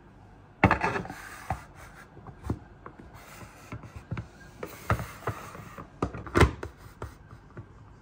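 White food storage containers and their bamboo lids being handled on a hard countertop: a lid is set on and the containers stacked, giving a string of light knocks and rubbing. The loudest knocks come about half a second in and again about six and a half seconds in.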